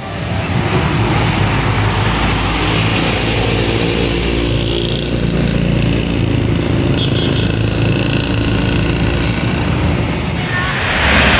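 Diesel bus engine running with a loud, rough, rattling 'ngorok' (snoring) exhaust note, the kind the narrator associates with old Mitsubishi BM and Hino AK3 chassis. It holds steady, then grows louder near the end.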